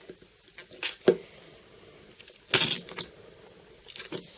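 Slime being pushed back into its small tub: a few short squelches and pops of trapped air, with a sharp click about a second in and the longest squish a little after two seconds.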